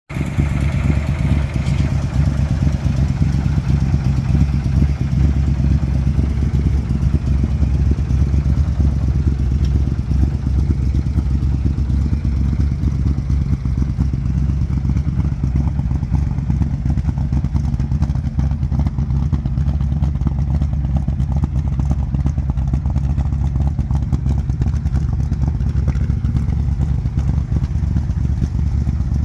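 Ford high-performance 289 V8 in a 1964 Fairlane 500 idling steadily, a low, even engine note with a fast pulse, from a car whose exhaust has a leak.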